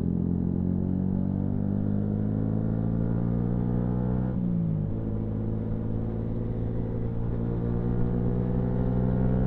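Yamaha MT-125's single-cylinder four-stroke engine running steadily under way. Its note eases slightly, breaks and shifts briefly about four seconds in, as at a gear change, then settles and runs steadily again.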